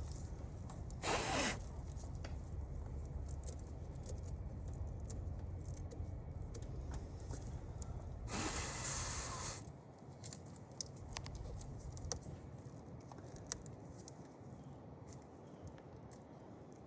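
Two hissing blasts of air blowing debris and cleaner out of a stripped battery cable end, a short one about a second in and a longer one past the middle, with light scraping and clicking of the cable being handled between them.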